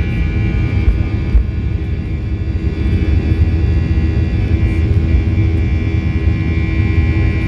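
Boeing 737-800's CFM56-7B jet engines at takeoff thrust, heard from inside the cabin: a steady low roar with a high fan whine over it as the airliner lifts off and climbs.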